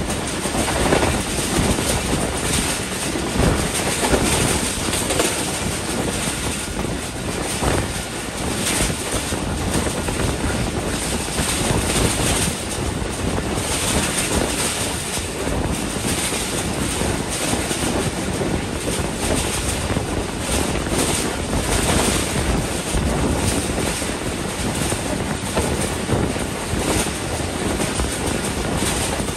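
Passenger train coach running at speed, heard at an open window: a steady rushing rumble of wheels on the rails mixed with the wind of the train's motion.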